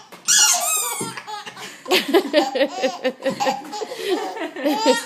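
A baby laughing hard, belly laughs in quick choppy bursts with high squeals about half a second in and again near the end.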